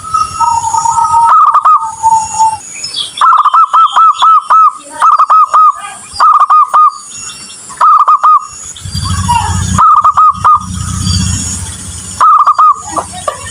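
Zebra doves cooing in quick series of short, rolling notes, group after group with brief pauses, fainter high chirps of other birds behind. A low rumble runs through the middle.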